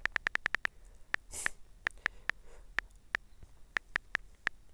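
iPhone on-screen keyboard clicking as a password is typed: a quick run of about eight taps, then single taps at uneven gaps of a few tenths of a second.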